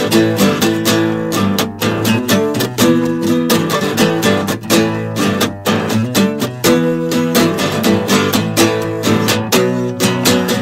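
Acoustic guitar strumming chords in a steady rhythm, an instrumental passage with no singing.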